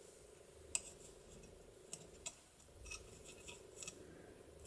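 Faint, sharp metallic clicks and ticks of small steel lock parts being handled and fitted into an opened mortise bolt lock case; the loudest click comes about three-quarters of a second in, then a scatter of lighter ticks. A faint steady hum lies underneath.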